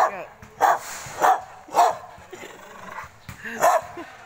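A dog barking: four sharp barks about half a second apart, then one more after a pause of about two seconds.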